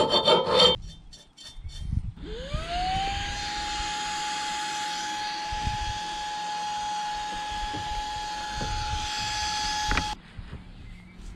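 A brief, loud scratchy rubbing noise, then a cordless handheld vacuum cleaner switches on about two seconds in. Its motor whine rises quickly to one steady pitch over a rush of air, as it cleans up metal filings, and it cuts off suddenly near the end.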